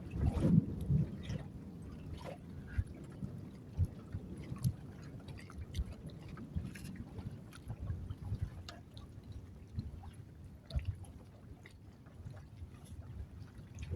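Wind rumbling unevenly on the microphone in a strong wind, with scattered small clicks and knocks.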